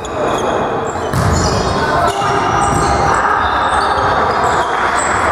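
Volleyball being served and played in a reverberant sports hall: sharp hand-on-ball hits at the start, about a second in and about two seconds in, with shoes squeaking on the floor and players' voices.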